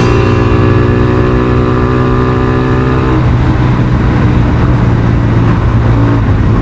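Suzuki Thunder 125 motorcycle engine running steadily through its aftermarket muffler.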